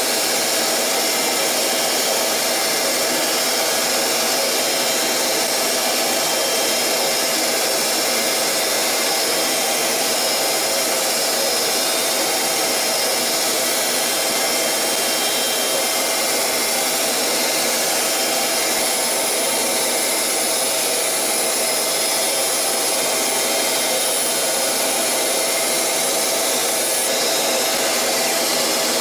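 CNC lathe turning a metal workpiece, the cutting tool shaving off chips: a steady machine whirr with a few constant tones running through it.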